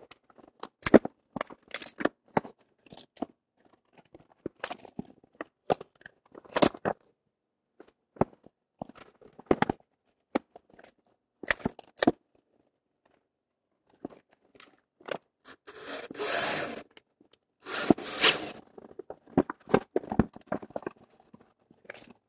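Plywood parts knocked and shifted on a table in a string of clicks and taps, then a cordless drill driving screws into half-inch plywood in two runs of about a second each, about two-thirds of the way through.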